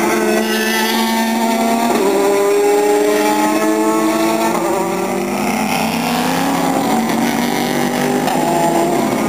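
Several GT race cars passing in a pack, their engines overlapping and each rising in pitch as it accelerates, with drops in pitch as they change gear.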